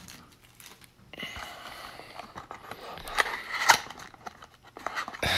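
A small cardboard Topps High Tek trading-card box being opened by hand. After a quiet first second the flap scrapes and rasps as it is worked loose, with two sharp snaps of cardboard a little after three seconds in.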